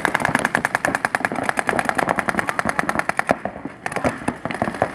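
Paintball markers firing in rapid strings, many shots a second, with a short pause about three and a half seconds in before the firing picks up again.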